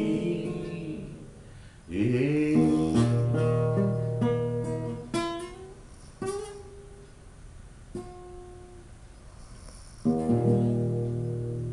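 Nylon-string classical guitar playing the closing bars of a milonga campera: strummed chords and single plucked notes, ending on a final strummed chord about ten seconds in that rings out.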